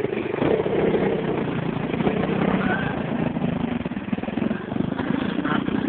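Small dirt bike engine running steadily.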